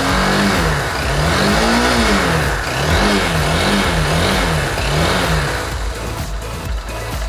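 Motorcycle engine revved by repeated throttle blips, its pitch rising and falling several times before settling back toward idle. It runs without timing-chain noise: the noise is completely gone once a new cam chain tensioner has been fitted.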